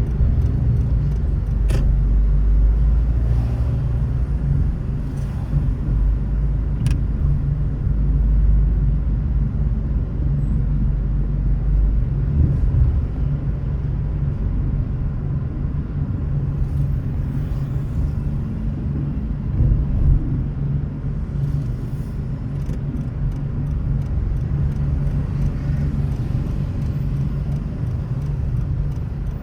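A car driving: steady low rumble of engine and tyre noise, heavier for roughly the first twelve seconds, with a couple of faint clicks.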